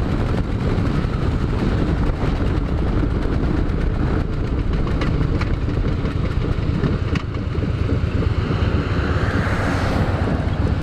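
Cruiser motorcycle running at highway speed on a blown-out rear tyre: heavy wind rush and low engine and road rumble with a few scattered knocks. A rushing hiss swells near the end as it rolls onto the gravel shoulder.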